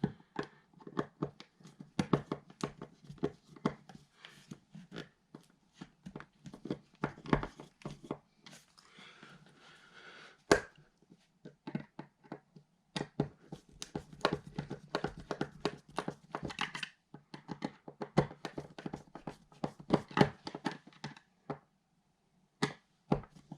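Irregular clicks, taps and knocks with some scraping: hands and tools working an electrical outlet into its wall box.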